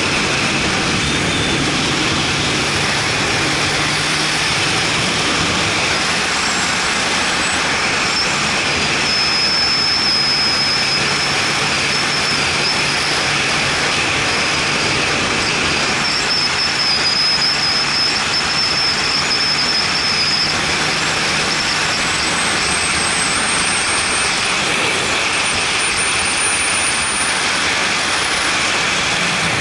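Steady rush of wind and road noise from a vehicle driving at speed, with a low, even engine hum underneath and a faint high whistle coming and going partway through.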